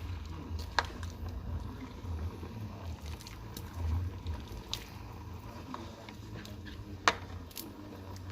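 A spoon stirring soup in a pot, with liquid sloshing and two sharp clicks as the spoon knocks the pot, over a low steady hum.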